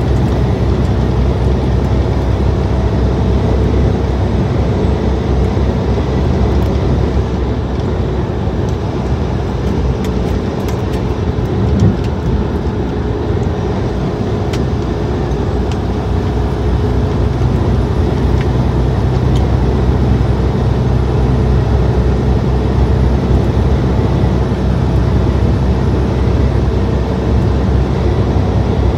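Steady engine and road noise of a truck cruising at highway speed, a continuous low rumble with tyre hiss, heard from the cab. One brief bump about twelve seconds in.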